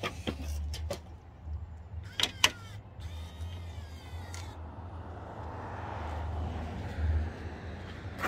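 A newly installed Solera power awning motor running: a few sharp clicks about two seconds in, then an electric gear-motor whir through the second half.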